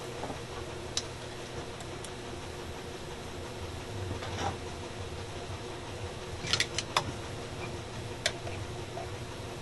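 Steady low hum of a small fan, with a few sharp clicks and taps of tools on the radio's metal chassis during desoldering. There is a brief hiss about four seconds in and a quick cluster of clicks a little before seven seconds.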